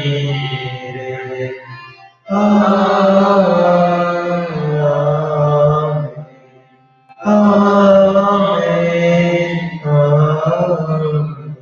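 A man's voice chanting a Tamil liturgical prayer in long held, melodic phrases, with short breaks for breath about two seconds in and again around six seconds.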